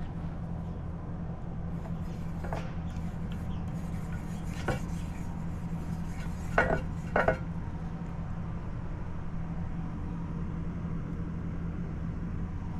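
Paint marker's nib tapping and scraping on a glossy marble tile while writing, giving a handful of sharp clicks, two close together about halfway through, over a steady low hum.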